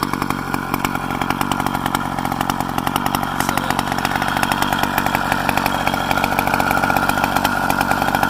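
Motorized bicycle's two-stroke kit engine running steadily with a rapid, buzzing exhaust beat, getting slightly louder toward the end.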